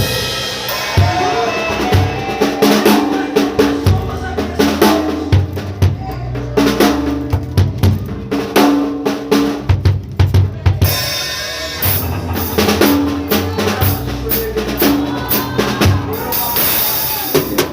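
Band music driven by a drum kit, with frequent bass-drum and snare hits over held instrumental tones.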